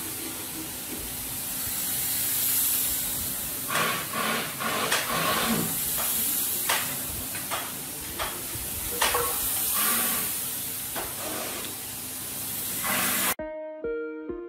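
Compressed-air spray gun hissing steadily as it sprays finish onto wooden beams, with scattered knocks and clicks from about four seconds in. Near the end it cuts abruptly to strummed guitar music.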